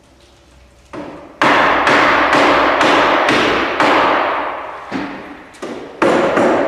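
Hammer blows on the timber of a wooden boat under construction, about two sharp strikes a second with a short pause near the middle, each one echoing on after the hit.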